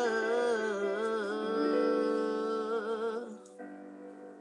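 A voice sings a long wavering note over backing instrumental music. The voice stops a little after three seconds in and the music fades out.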